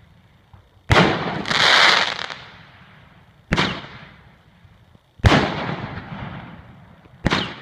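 Consumer firework cake (a 16-shot cake) firing its shots one after another: four sharp bangs about two seconds apart, each trailing off, the first followed by a louder noisy burst lasting about a second.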